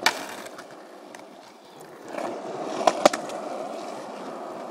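Skateboard wheels rolling on a concrete sidewalk, growing louder about two seconds in. A sharp board clack at the start and two quick clacks about three seconds in.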